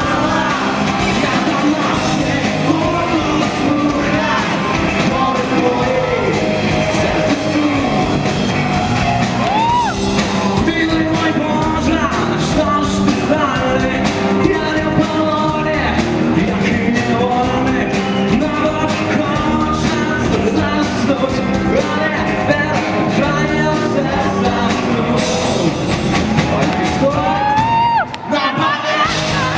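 Rock band playing live with a singer over the band. Near the end the band cuts out for a moment, leaving the voice, and then comes back in.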